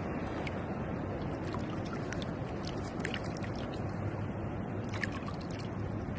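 Moving water: a steady rushing and gurgling with small scattered drips and clicks.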